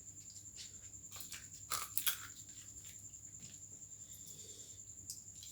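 Close-up eating sounds of pigeon and chicken heads being bitten and chewed, with small bones crunching; a quick cluster of sharp crunches about two seconds in is the loudest part.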